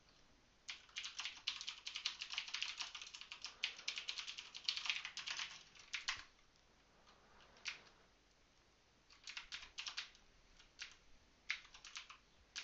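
Typing on a computer keyboard: a fast, dense run of keystrokes for the first few seconds, a pause with a single click, then two shorter bursts of keystrokes near the end.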